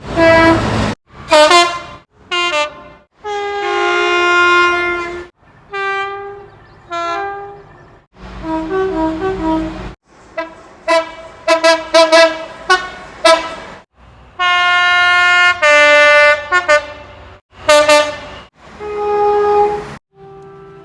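A rapid run of British train horns, cut together with abrupt breaks: diesel locomotives and multiple-unit trains sounding their horns in long blasts and short toots, some sounding two notes, one high and one low, with the low rumble of the trains under some of them.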